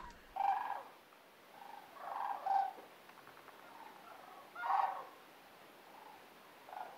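Sandhill cranes calling at their night roost: a flock's calls in short bouts every second or two, the loudest a little past halfway.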